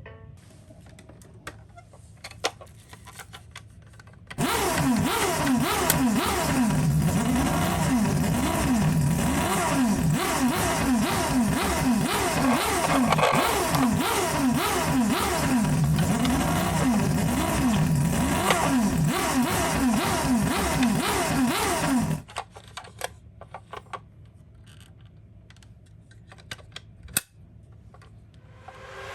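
Several toy ambulances sounding their electronic sirens at once, a dense jumble of overlapping wails that starts suddenly about four seconds in and cuts off sharply some eighteen seconds later. Before and after it, scattered light clicks and knocks.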